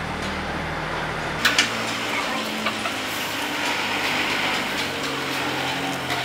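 Steady street traffic with a vehicle engine running. About a second and a half in come two sharp clicks, with a smaller one a second later, as the rod sections in their cloth sleeve are handled.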